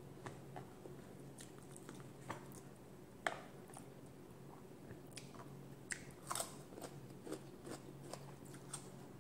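Faint chewing and mouth sounds of a person eating with her hands: scattered soft clicks and smacks, with sharper ones about three and six seconds in.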